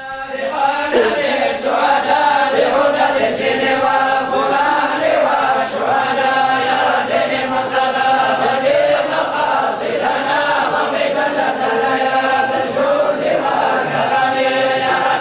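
A group of voices chanting together in unison, a slow, drawn-out melodic chant that runs on without pause.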